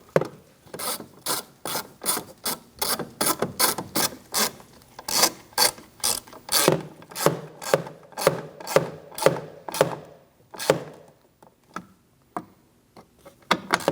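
Hand ratchet clicking in a steady run of about two to three clicks a second as two bolts are tightened down, thinning to a few scattered clicks near the end.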